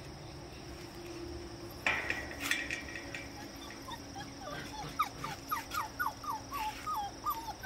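A dog whining in a quick run of short, high whimpers, a few a second, starting about halfway through, after a brief knock about two seconds in. The whining is the kind a dog makes when it wants to be let out.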